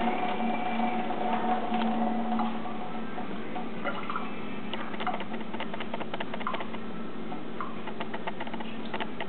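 Tap water running from a kitchen faucet into a stainless steel sink: a steady splashing hiss, with a faint steady hum that fades after about two and a half seconds. From about three seconds in, many scattered sharp ticks of drops striking the sink.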